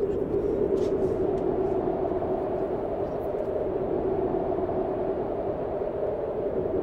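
Loud, steady rushing of wind with a low drone under it, a conjured gust heralding the summoned demon's arrival.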